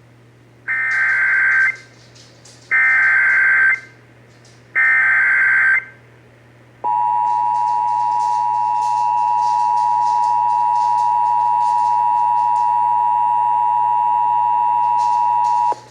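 Emergency Alert System tones broadcast over AM radio. First come three one-second bursts of SAME header data, a harsh digital screech, about a second apart. Then the two-tone EAS attention signal is held steady for about nine seconds and cuts off sharply, with a low steady hum under it all.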